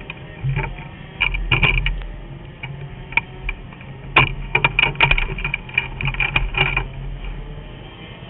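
Irregular clatter of sharp metallic-sounding clicks and rattles, bunched in two flurries, over a steady low hum.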